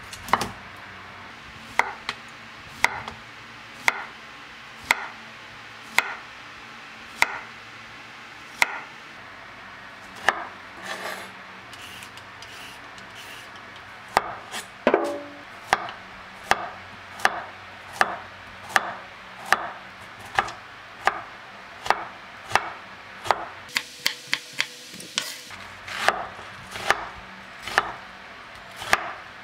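Chef's knife chopping vegetables on a wooden cutting board, slicing zucchini, then carrot, then dicing red onion. The knife strikes the board about once a second at first, then faster and closer together in the second half.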